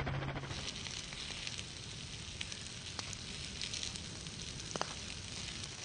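Grass fire burning through dry grass and undergrowth: a steady crackling hiss with a few sharp pops.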